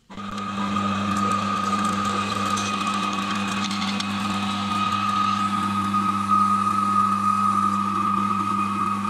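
Electric meat grinder running under load as chunks of beef and pancetta are pushed through it. It switches on right at the start and gives a steady motor hum with a high whine over it.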